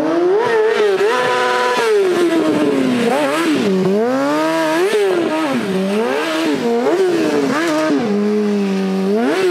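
Kawasaki stunt motorcycle's engine revving up and down under constant throttle changes during stunt riding and drifting, held at one steady high note for about a second near the start and settling to a low steady note near the end.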